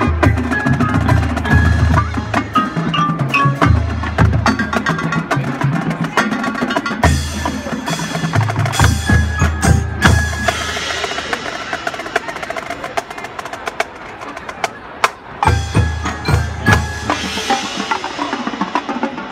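Marching band percussion section playing a feature: runs of low bass drum hits recur every few seconds, mixed with sharp clicks and ringing mallet keyboard notes. The bass drums drop out for a stretch after the middle.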